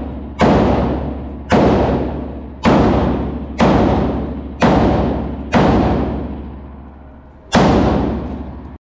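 Seven gunshots in an indoor shooting range, about one a second with a longer pause before the last, each followed by a long echo.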